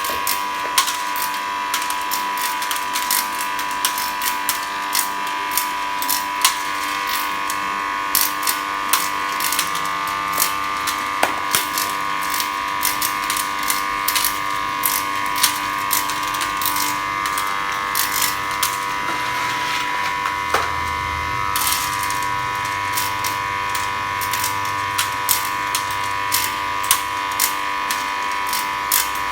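Electric snail-tail cutting machine running: a steady motor whine with a dense, irregular stream of sharp clicks and rattles.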